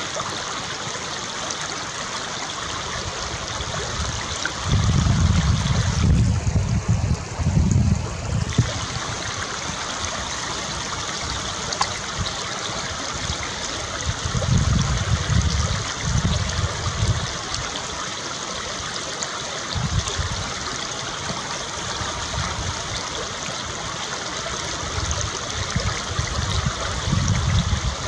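Steady rush of running water, with wind buffeting the microphone in low rumbles a few times.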